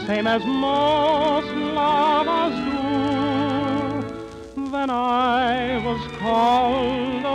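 A male tenor singing with strong vibrato, long held notes, over an orchestra.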